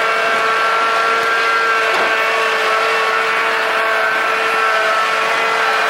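Engine of the vehicle pulling a hay-ride wagon, running at a steady speed with an even, unchanging drone.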